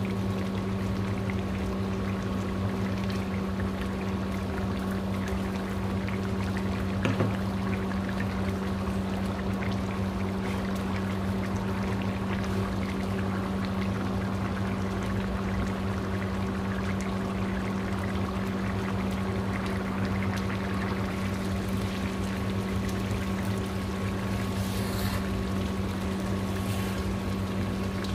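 A steady low machine hum over a constant rushing noise, with one short knock about seven seconds in.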